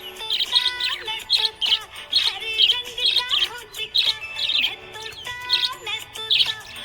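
Budgerigar chirping in quick, repeated bursts, over background music with held melodic notes.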